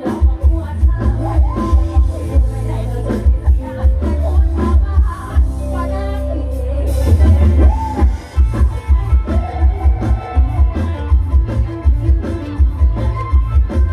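Loud amplified live band music from a Thai rot hae mobile stage truck's sound system: a heavy bass-drum beat with keyboard and electric guitars, and female singers' vocals. The beat drops out briefly about six seconds in, then returns.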